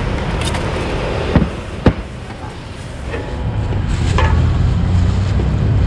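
Two sharp clicks of a metal cooking utensil striking metal, about half a second apart, over a steady low rumble that grows louder from about three seconds in.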